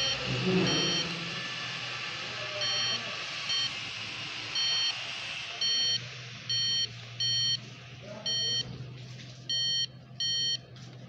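Handheld circuit tester probe beeping as its tip touches fuse terminals, about ten short beeps of the same pitch at uneven intervals, coming closer together near the end. A low steady hum runs underneath.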